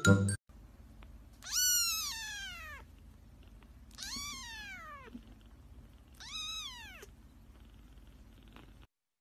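A domestic cat meowing three times. Each meow is a long, drawn-out call that rises and then falls in pitch. The first is the loudest and longest.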